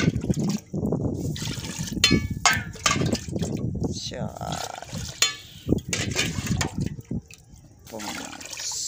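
Water poured from a steel cup into a large steel cooking pot, cupful after cupful, with occasional clinks of metal on metal as the pot is filled with water for the rice.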